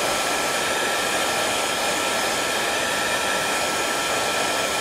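Electric heat gun running steadily, its fan blowing hot air with a steady whine over the rushing airflow, shrinking heat-shrink tubing onto a hot-glued connector.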